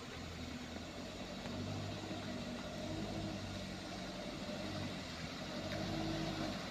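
Loaded light diesel truck's engine at a distance, pulling slowly along a rough dirt track, its pitch stepping up and down with the throttle and growing a little louder as it approaches.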